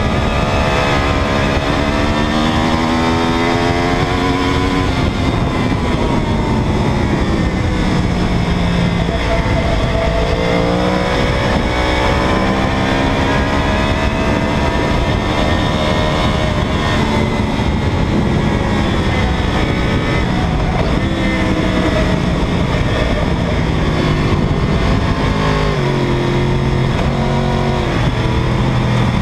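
2009 Yamaha R1's inline-four engine under hard track riding, its revs rising and falling as the bike accelerates and shifts, over a heavy rush of wind. About 26 seconds in, the engine settles to a lower, steadier pitch.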